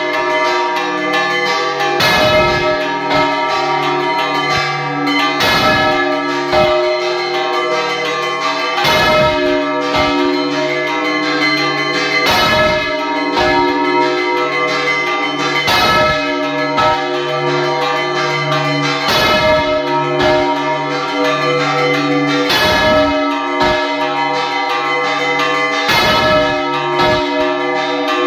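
Several church bells rung by hand, pealing together without a break. A heavy stroke comes about every three and a half seconds over lighter strokes in between, and the bells' tones ring on between strokes.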